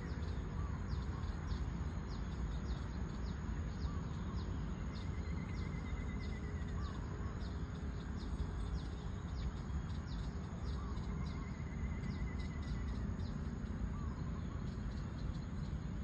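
Several birds calling over a steady low background rumble: a short high chirp repeated about twice a second, thinning out in the second half, a brief trill that comes back roughly every six seconds, and scattered softer call notes.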